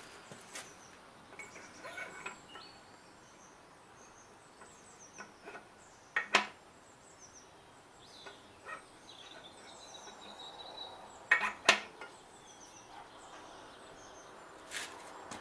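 Scattered metallic clinks and knocks of a steel bar and scaffolding tube being handled and set against a differential casing and socket tool, the sharpest about six seconds in and twice near eleven to twelve seconds. Birds chirp faintly in the background.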